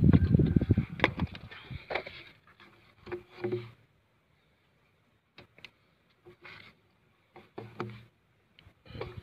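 A thin metal blade scraping and prying between a glued PVC pipe stub and its fitting's socket, the old pipe wall cracking and breaking away in pieces. Loud rough scraping in the first two seconds, then a few scattered knocks and clicks as the pieces are worked loose.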